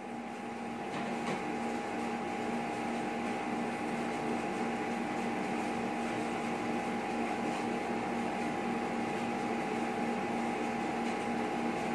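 DVD karaoke player's disc drive spinning up and whirring steadily while it loads a selected song, a low hum that builds over the first couple of seconds and then holds.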